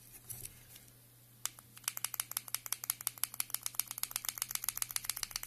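Quick, even clicking of a small plastic push button on a Canyon CNE-CSPB26B powerbank being pressed and released over and over, about ten clicks a second, starting about one and a half seconds in.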